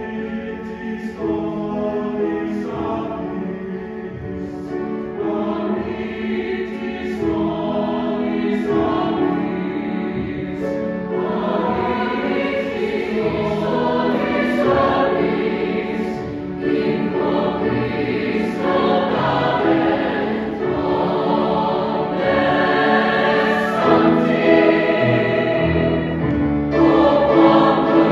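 Mixed high school chamber choir singing in several parts, sustained chords that grow steadily louder toward the end.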